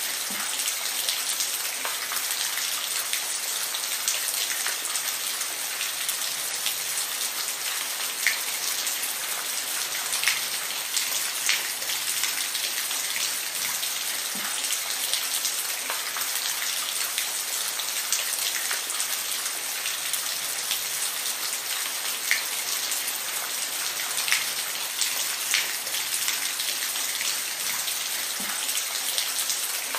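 Steady rainfall, a dense hiss of rain with individual drops landing as scattered louder ticks every second or two.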